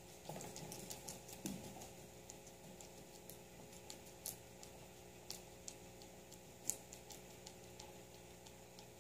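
Guinea pig eating fresh herbs: faint, irregular small clicks and crunches of chewing, with a brief rustle in the first couple of seconds.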